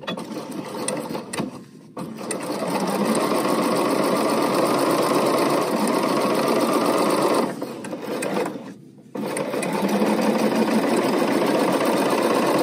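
BERNINA sewing machine stitching at speed while sewing piping onto fabric, running in spurts: a short stop about two seconds in, a steady run, then a slowdown and brief stop about nine seconds in before it runs again to the end.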